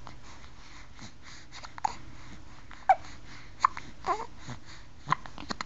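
Hiccups: about six short, sharp hiccups at uneven spacing, a couple of them with a brief whining note.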